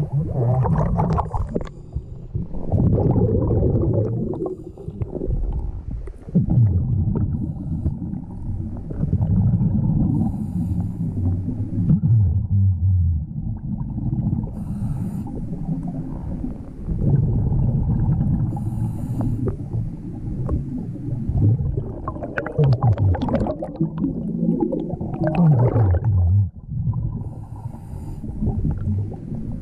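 Scuba diver breathing underwater through a regulator: long bubbling rumbles of exhaled air a few seconds each, with brief faint hissing inhales between them.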